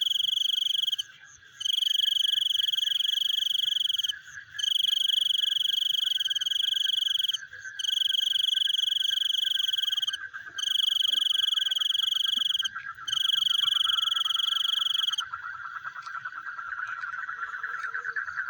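Frogs and insects calling: a loud, high, steady trill comes in phrases of two to three seconds with short breaks and stops about fifteen seconds in. Under it runs a lower, rapidly pulsing trill that carries on and grows louder near the end.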